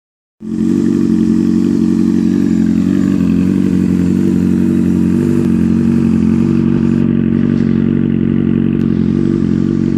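Honda CBR 600F's inline-four engine idling steadily through an aftermarket Hurricane Evolution exhaust, a loud, deep rumble. It starts abruptly about half a second in.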